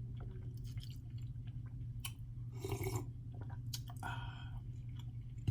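A person chewing a mouthful of lasagna roll-up close to the microphone, with wet mouth clicks and a few brief smacking sounds, over a steady low hum.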